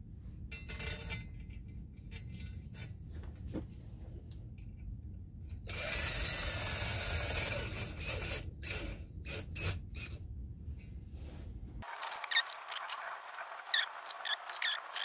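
Screws being fitted into a drilled stainless steel tray: a cordless drill runs for about two seconds near the middle, with small metal clicks and taps of screws being handled and turned in by hand before and after.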